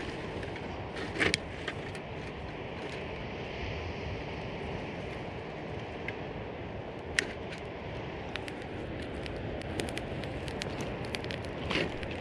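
Campfire crackling, with scattered sharp pops, over a steady rushing noise.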